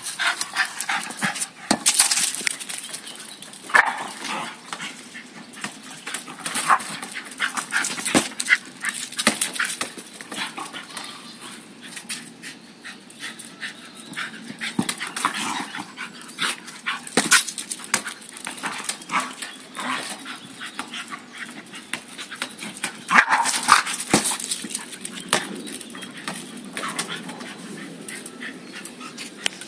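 Lakeland terrier barking now and then in short bursts while playing with a ball on block paving, amid many small knocks and scuffs of the ball and its claws on the paving.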